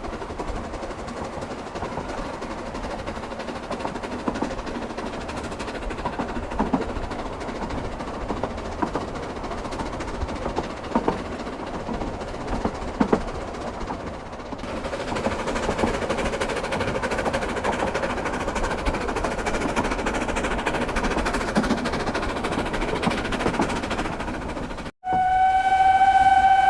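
Narrow-gauge steam locomotive Palmerston working a train up the line, a continuous running sound with scattered clicks and knocks. Near the end, after a brief break, a steam whistle blows one steady, loud note.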